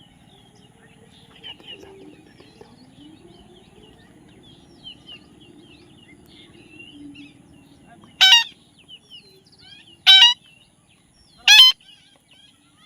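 Pet parrot calling: faint chirps and twittering, then three loud, harsh squawks about a second and a half to two seconds apart in the second half.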